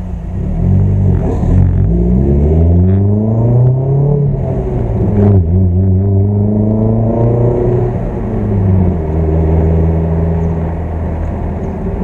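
Car engine heard from inside the cabin, pulling away and accelerating. Its note rises, dips at a gear change about four seconds in, and climbs again. A short clunk comes about five seconds in, and the engine then eases off to a steady cruise from about eight seconds in.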